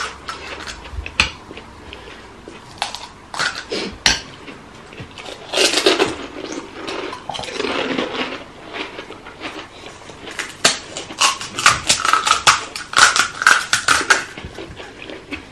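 Eating pani puri: scattered clicks and clinks of spoons against ceramic bowls and plates, with crisp puri shells being cracked open and chewing and slurping.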